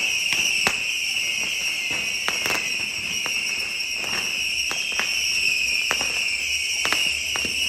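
Massed bottle rockets going off, a continuous shrill whistling hiss with many sharp pops scattered through it.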